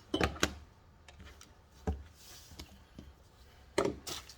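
Handling noise of tools being picked up and set down on a hard surface: two quick knocks near the start, another about two seconds in, and a cluster of clicks and knocks near the end.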